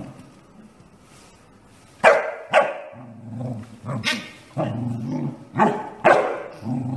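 Corgi barking in short, sharp bursts, about five of them starting some two seconds in, with low growling between the barks during rough play.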